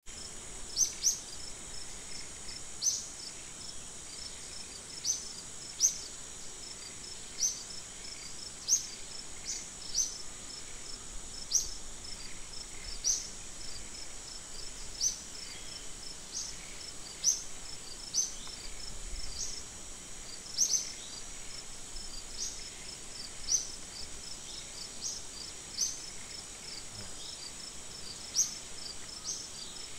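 Outdoor insect chorus: a steady high-pitched drone with a fine pulsing trill under it, broken every second or two by a short, sharp rising chirp.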